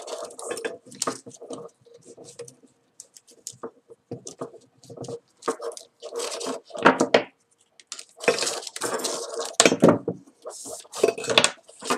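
Paracord and a metal lacing needle being handled as the cord is pulled through and tightened: an uneven run of rustles and scrapes with light metallic clinks.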